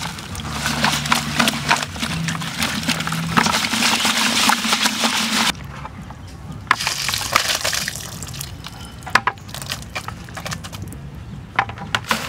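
Banded bullfrogs being rubbed and stirred with coarse salt in a plastic bucket: a dense, wet crackling and scraping that cuts off abruptly about five and a half seconds in. Quieter scattered clicks and knocks follow.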